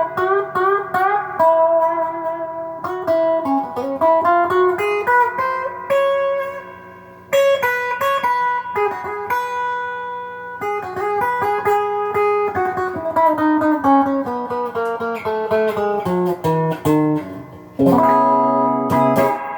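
Gearit Telecaster-style electric guitar played on its bridge humbucker, full humbucker with no coil split: single-note lines and licks, with one note left ringing and fading about six to seven seconds in. Strummed chords come near the end.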